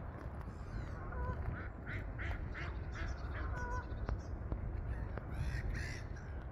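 Ducks quacking by a lake: a quick run of about half a dozen short quacks near the middle, then two louder calls near the end. A few thin whistled notes from another bird come in between.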